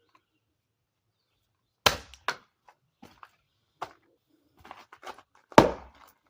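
A blade chopping into an oak block: two heavy strikes about three and a half seconds apart, the second the loudest with a brief ring, and a lighter hit and a few faint knocks in between.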